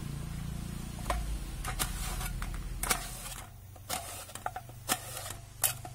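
Knife cutting apples, with irregular sharp clicks and taps as the slices drop into a stainless steel plate, over a low rumble that fades about halfway in.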